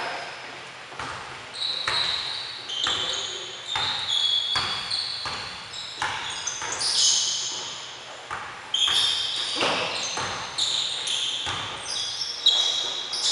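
A basketball bouncing on a hardwood gym floor, irregular thuds that echo in the large hall, mixed with many short high squeaks of sneakers on the wood as players run and cut.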